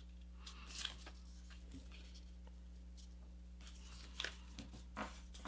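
Faint rustling and crinkling of a sheet of paper being folded and pressed into creases by hand, with a few soft scrapes scattered through.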